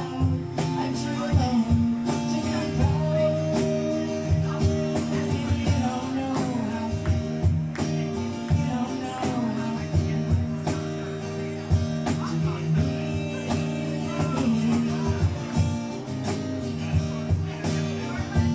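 Background music with guitar and a steady beat, a singing voice woven in.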